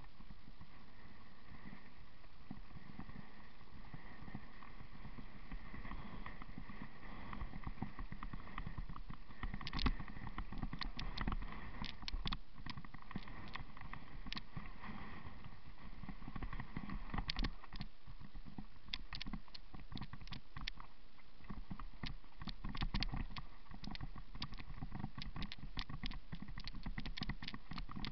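Mountain bike descending a trail, heard through a camera mounted on the bike: a steady rumble of tyres and wind, then from about ten seconds in frequent sharp knocks and rattles as the bike runs over rough dirt trail, coming thick and fast near the end.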